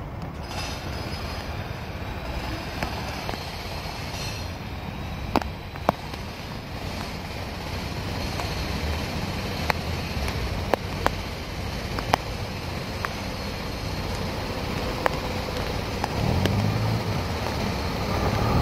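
Street trams running on their rails, with scattered sharp clicks along the way. Near the end the low rumble of an articulated tram approaching grows louder.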